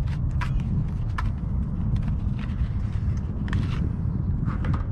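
Wind buffeting the microphone, a steady low rumble, with scattered light clicks and crackles as a spool of braided fishing line is handled.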